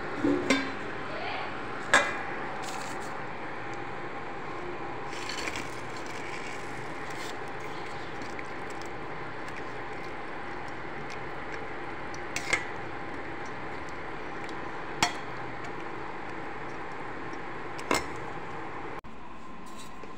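Metal ladle clinking against a steel cooking pot of kadhi as it is stirred: a few sharp single clinks several seconds apart, over a steady background hum.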